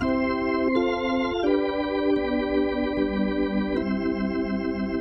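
Hammond B3 organ playing a series of held chords on a 'salt' drawbar registration: the fundamental drawbar plus the third, fourth, sixth and ninth, all pitched in octaves of each other, which gives a wide, open tone. The chord changes about four times, and the notes waver slightly.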